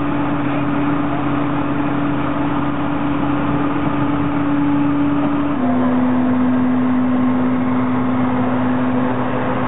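Fire truck engine running steadily with a constant drone; its pitch drops a little about halfway through.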